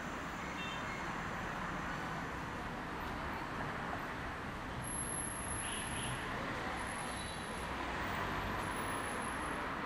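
Steady city street traffic noise: cars running on the road in an even, continuous wash of sound, with no single vehicle standing out.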